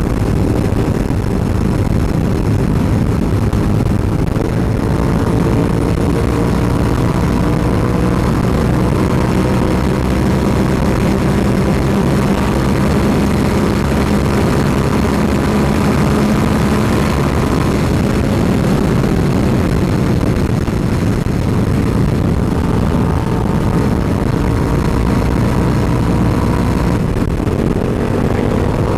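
Suzuki SV650's V-twin engine pulling at highway speed, mixed with heavy wind rush. The engine's pitch climbs slowly, breaks briefly near the end and then climbs again.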